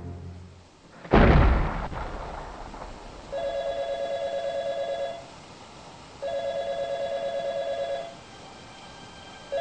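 A loud boom about a second in that dies away over about a second. Then a mobile phone rings with a fast, trilling ring tone: two rings of about two seconds each, with a third starting at the very end.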